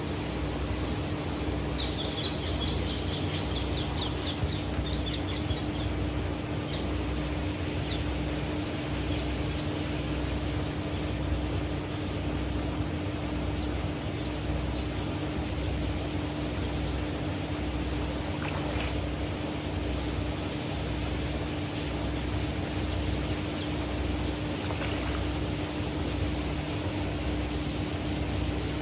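A motor running steadily with an even low drone and a regular low pulsing, and a bird chirping a quick run of short calls a couple of seconds in.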